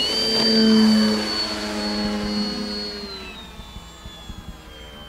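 Electric motor and propeller of an Avios Grand Tundra RC bush plane on a 4S battery, under power on takeoff and climb: a high steady whine over a propeller hum. It is loudest about a second in, then its pitch and loudness fall from about three seconds in.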